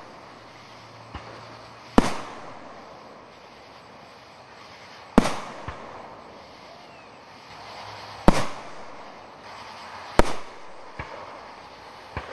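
Aerial firework shells going off in a display: four loud bangs two to three seconds apart, each trailing off in an echo, with fainter pops between them.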